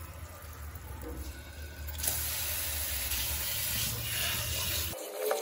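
Tap water running into a steel bowl of raw chicken pieces in a stainless steel sink as the chicken is rinsed. The hiss grows louder about two seconds in and cuts off suddenly near the end.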